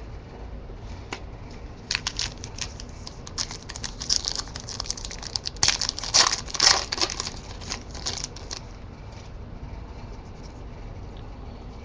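Panini Crusade basketball card pack wrapper being torn open and crinkled. A fast run of crackles starts about two seconds in, is loudest past the middle, and dies away after about eight seconds.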